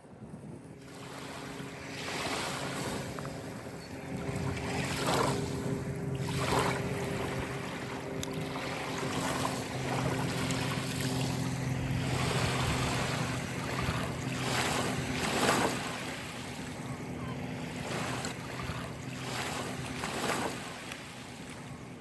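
Waves washing and breaking on the shore in repeated surges, over a steady low motor hum.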